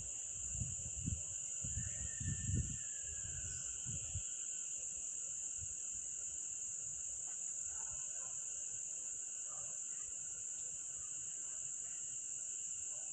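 Steady high-pitched insect chorus shrilling without a break, with a few low bumps on the microphone in the first four seconds.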